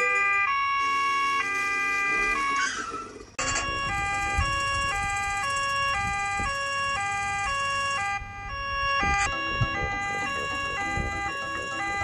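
Cartoon emergency-vehicle siren sound effect, a two-tone nee-naw alternating between a high and a low note about twice a second, heard through a TV speaker. It breaks off briefly about three seconds in, then carries on and grows quieter near the end.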